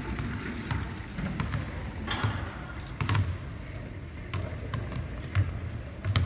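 A basketball bouncing on a hardwood court: irregular dull thuds about once a second, mixed with scattered sharp clicks.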